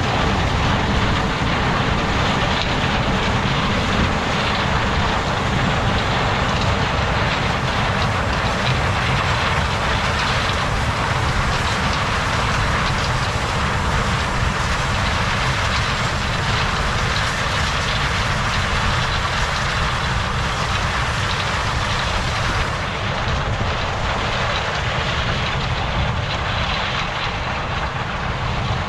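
Steady vehicle running noise: a continuous low rumble with a broad hiss on top and no distinct engine note, slightly duller near the end.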